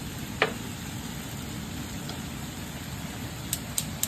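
Steady hiss at a gas stove with a small pool of oil heating in a stainless saucepan, one sharp click about half a second in. Near the end, quick regular ticks begin, about four a second, like a gas range's spark igniter clicking as the knob is turned.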